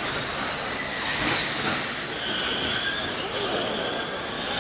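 Formula E electric race cars running on the circuit, their electric motors and gearboxes giving a high-pitched whine that shifts in pitch as they pass, strongest from about halfway through.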